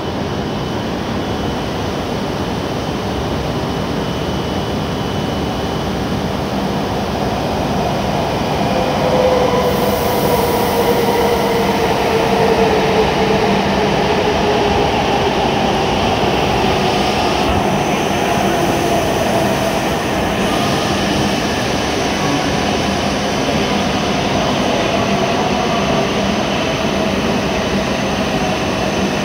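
E7 series Shinkansen train pulling into the platform and braking to a stop. There is a steady rush from the moving cars, and from about a third of the way in a motor whine slowly falls in pitch as the train slows.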